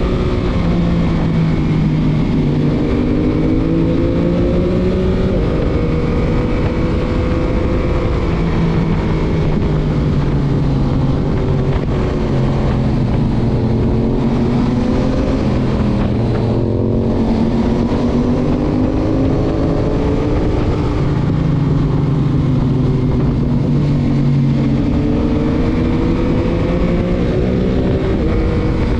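Stock 2021 Yamaha MT-09's 890 cc three-cylinder engine under way, its pitch rising and falling and stepping as the rider accelerates, shifts and rolls off through bends. A steady wind rush on the microphone runs under it.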